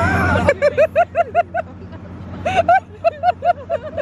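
People laughing in quick 'ha-ha-ha' runs, one starting about half a second in and another about two and a half seconds in, over the low hum of a boat engine idling.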